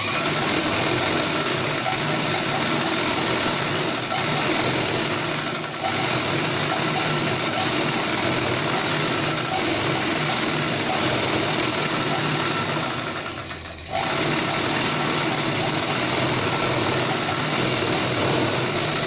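Black Chauhan straight-stitch sewing machine running steadily as it stitches a long seam through cotton fabric. It slows briefly about six seconds in, eases off for a moment about two-thirds through, then picks up speed again. The machine is sewing back over the existing stitch line to reinforce it so the seam won't pop.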